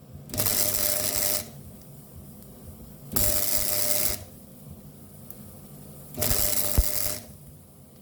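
MIG welder laying a plug weld in three short pulses, each about a second of crackling arc with the wire feed running, with brief pauses between them.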